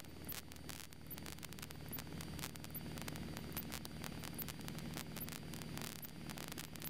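Light aircraft piston engine droning steadily in cruise, heard faintly through the cockpit intercom under a hiss of static.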